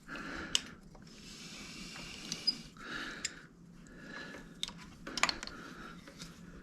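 Scattered light clicks and taps of small metal parts, such as bolts and a removed ignition coil, being handled on a motorcycle during a teardown, with soft breathing between them.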